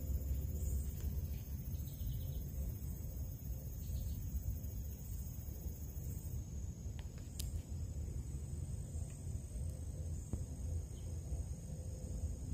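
Quiet outdoor ambience: a steady high-pitched insect trill over a low rumble, with a faint click about seven seconds in.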